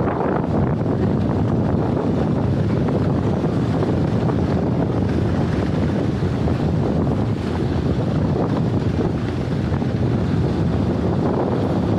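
Wind rushing and buffeting over the microphone, with a low, steady rumble of a toboggan running down the track.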